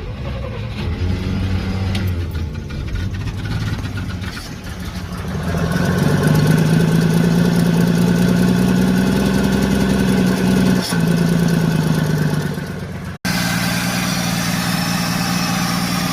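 Studebaker flathead engine running just after being brought back to life. It runs at a low speed, picks up to a higher steady speed about five seconds in, then settles back to a lower idle after a short break near the end. The owner blames its poor running on a worn-out carburetor and a heat riser stuck shut.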